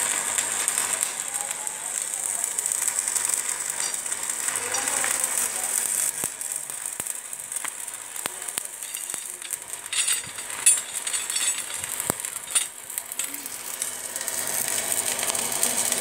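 Electric arc welding on steel reinforcing bars: a steady high noise, with a few sharp clicks a little past the middle.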